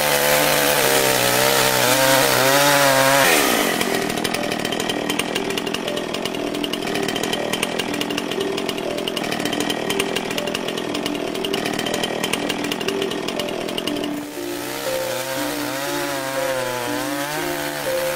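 Chainsaw running and cutting into a tree. Its pitch wavers up and down for the first few seconds and drops sharply, then it runs steadily with a dense, rough sound for about ten seconds before the wavering pitch returns near the end.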